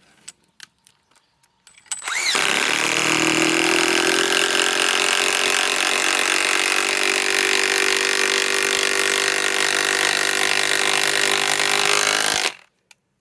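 A DeWalt DCF891 mid-torque cordless impact wrench runs for about ten seconds, winding up quickly at the start and then holding a steady pitch before cutting off sharply near the end; it is being run to warm it up in freezing cold. A few light clicks come before it starts.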